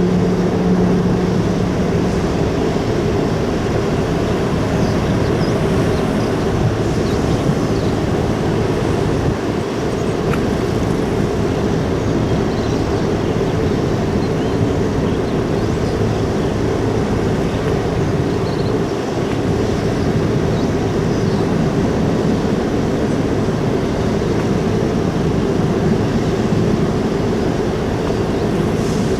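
The ferry's engines and machinery running with a steady, loud low drone that holds a few constant tones.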